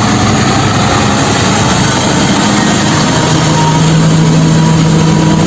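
Diesel engine of a heavy container semi-truck (tractor unit hauling a container trailer) running as it drives slowly by, with a loud steady rush of traffic noise. A steadier low engine hum comes in about halfway through.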